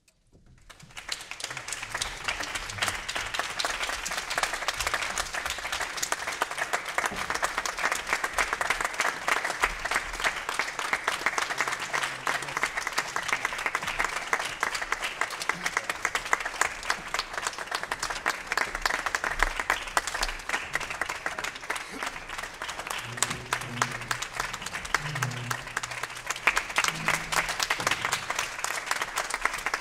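Audience and performers applauding, a dense steady clapping that rises out of silence in the first second and holds.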